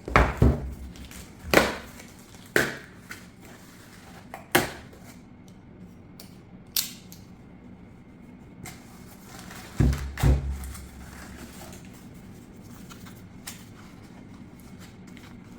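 Packaging being handled while unpacking a boxed amplifier: scattered knocks and clicks of cardboard and plastic, with a few sharper thumps about ten seconds in, then only a low background hum.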